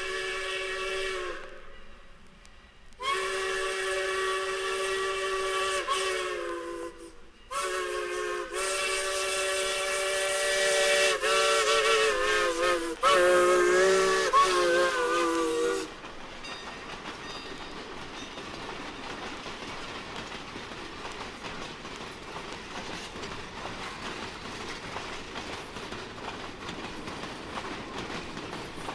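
Steam locomotive chime whistle of the Bonhomie and Hattiesburg Southern Railway blowing four blasts, one short and then three long, each sounding several notes at once and sagging in pitch as it closes. After the last blast, about halfway through, comes the steady rolling noise of the train running past.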